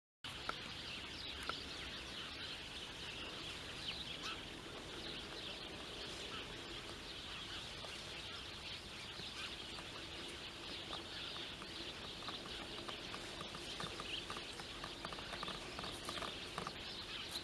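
Lakeside ambience: a steady, faint din of many distant birds calling.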